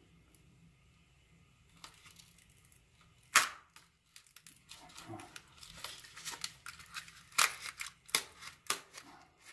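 Foam fuselage halves of a small RC airplane being pried apart against something stuck hard inside: a sharp snap about a third of the way in, then irregular crackling and tearing with several louder cracks over the second half as the bond gives way.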